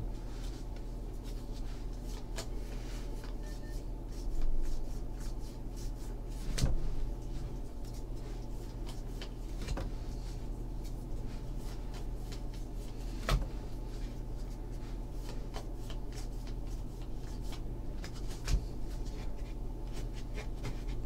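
Baseball trading cards being flipped and slid off a hand-held stack one by one, soft card-on-card rubbing with occasional light taps, over a steady low hum.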